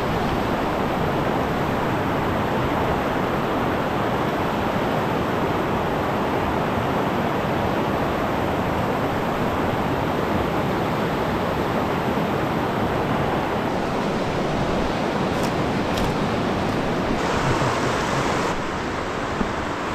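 River rapids rushing: a steady wash of white water, easing slightly near the end.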